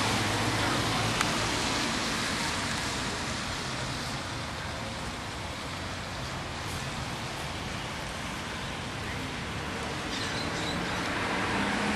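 1997 Holden Commodore VT's V6 petrol engine running, under a steady rush of noise, with one sharp click about a second in.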